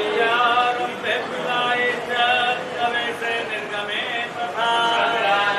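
Several voices chanting together in a devotional chant, held notes overlapping, with people talking over it.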